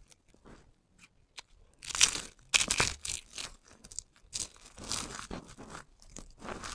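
Dry soap cubes crushed between the fingers, crunching and crumbling in clusters of crisp crackles. The loudest cluster comes about two seconds in, with further crunches about five seconds in and near the end.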